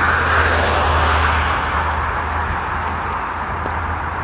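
Steady rumble of passing vehicles over a low hum, loudest about a second in and easing off slightly after.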